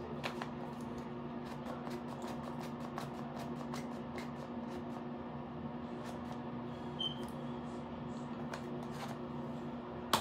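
Scattered soft clicks and rustling of hands handling a skincare bottle and rubbing product between the palms close to the microphone, over a steady low hum.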